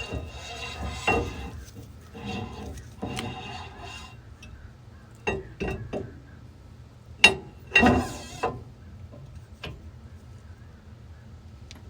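Metal scraping and clanking as a steel axle shaft is slid into the axle housing of a 1965 Chevy II. Irregular rubs and knocks, with the sharpest clanks about seven and eight seconds in.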